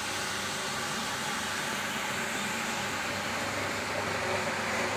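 Makage BF 1500 single-disc floor scrubbing machine running, its rotating brush scrubbing a wet, foamy stone floor: a steady motor hum under an even scrubbing hiss.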